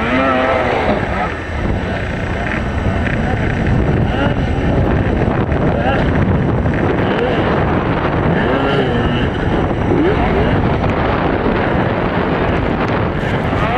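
Two-stroke race snowmobiles running on a snocross track, engine pitch rising and falling, under heavy wind noise on the microphone.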